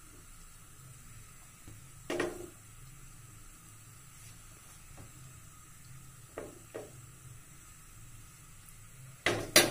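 An iron tawa held upside down over a gas burner knocks against the stove's metal pan support a few times: once about two seconds in, twice lightly a little past the middle, and loudest in a quick double clatter near the end, over a faint steady background hiss.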